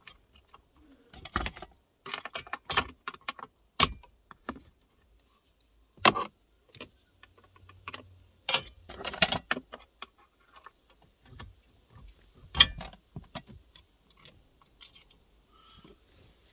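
Irregular clicks, knocks and rattles of hands working at the wiring and fittings inside a car, in scattered bunches, with one sharp knock, the loudest, about three-quarters of the way through.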